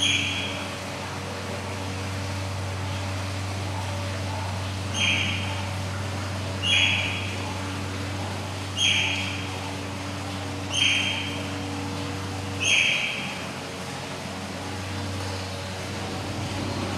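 Eurasian otter calling repeatedly: short high-pitched calls, one right at the start and then five more about every two seconds from about five seconds in. A steady low hum runs underneath.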